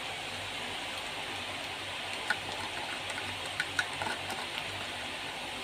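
Hot oil sizzling steadily in a pan around green chilies and freshly added spice powder, with a few sharp crackles between about two and four seconds in.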